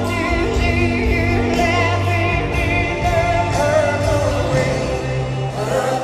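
Live concert sound: a female singer holds long notes with a wide vibrato over a band's sustained bass and keyboard chords.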